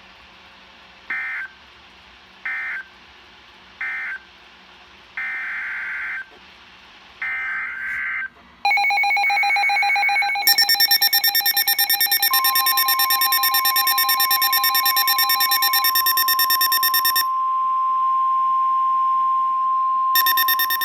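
Emergency Alert System data and alert tones. Three short raspy data bursts end the previous warning, and two longer bursts follow. Then a loud pulsing electronic alarm tone sounds, joined about 12 s in by the steady single-pitch NOAA Weather Radio 1050 Hz warning tone, with another pulsing burst near the end.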